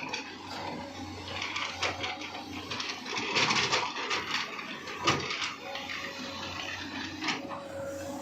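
Tata Hitachi excavator at work: a steady engine drone under irregular clattering and scraping that is loudest about three to four seconds in, with a sharp knock about five seconds in.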